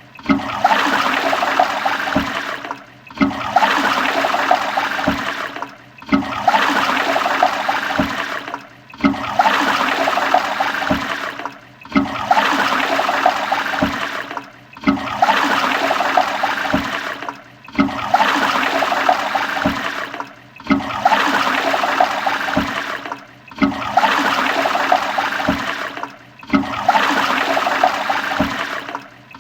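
Toilet flushing: rushing, gurgling water from the bowl. The same short flush of about three seconds repeats over and over with a brief drop in level between repeats, roughly ten times.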